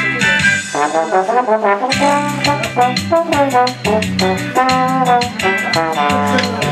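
Trombone playing a solo melody over a backing track of drums and bass played through an amplifier. About half a second in, the backing drops out and the trombone plays a quick run alone; the beat comes back in about two seconds in.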